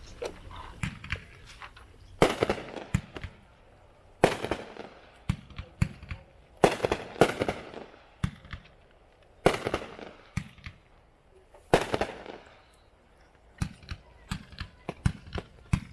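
Hot Fireworks 'Show Starter' 42-shot consumer fireworks cake firing: loud shell bursts about every two to two and a half seconds, each followed by a crackling tail, with smaller pops between them and a quick run of small pops near the end.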